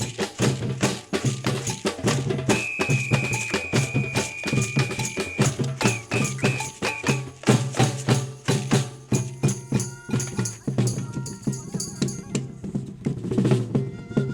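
Brazilian batucada percussion group playing a driving samba rhythm on deep drums and smaller hand percussion. A long high whistle note sounds about two and a half seconds in, followed by four short whistle blasts.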